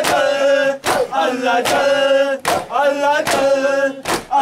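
Men's voices chanting a Shia noha refrain together, with chest-beating (matam) slaps landing in time, about one every 0.8 seconds.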